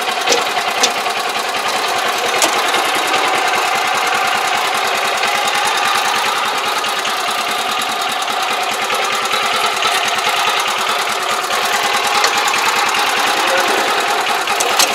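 Small crawler machine's engine running steadily with a fast, even chug as it reverses to work a derailed track back onto its wheels, with a few sharp clanks from the track, a sign of the track being forced back into place.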